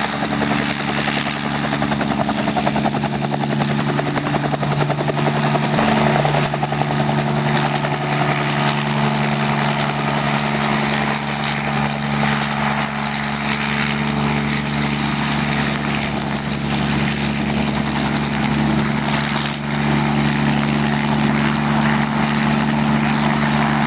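Helicopter running steadily: a continuous rotor and engine drone with a steady low hum and a fast, even beat.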